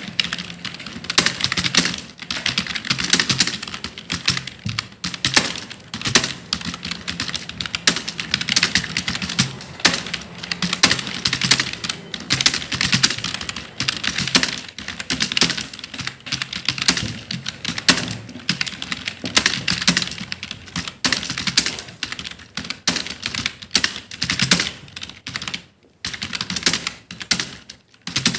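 Computer keyboard being typed on fast and steadily, a dense run of key clicks with two short pauses near the end.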